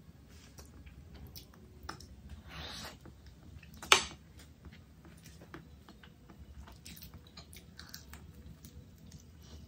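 A person chewing food close to the microphone, with many small wet clicks. There is a short rustle about two and a half seconds in and one sharp, loud click about four seconds in.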